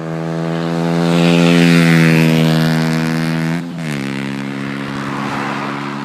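KTM 125 Duke's single-cylinder four-stroke engine, breathing through an aftermarket WRX exhaust and K&N air filter, running loud as the bike rides past. Its note sinks slowly, drops sharply about three and a half seconds in, then holds steady at a lower pitch.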